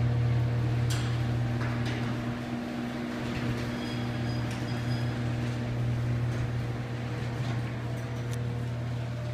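Electric garage door opener running steadily as the door moves, with a low motor hum and a few faint clicks early on from the door and its track.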